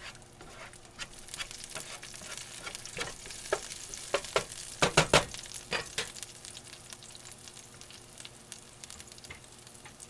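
Onions sizzling in a skillet, with a utensil knocking and scraping against the pan. The knocks are loudest about five seconds in, and the sizzle eases off toward the end.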